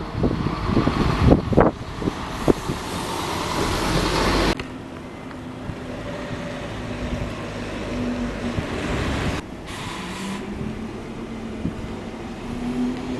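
A vehicle running, with wind buffeting the microphone in gusts for the first few seconds. After an abrupt change, a steadier motor hum with faint steady tones continues, rising slightly in pitch near the end.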